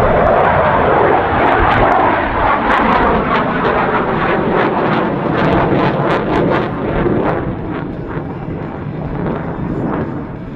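Jet noise from a CF-18 Hornet's twin F404 turbofans as it passes overhead: a loud rushing roar with sharp crackles through the middle, easing off over the last few seconds.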